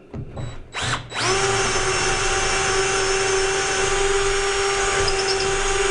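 DeWalt cordless drill boring a 6 mm hole into a timber joist in plain drill mode, not hammer. A brief blip of the trigger comes about a second in, then the motor runs at one steady pitch for nearly five seconds and stops.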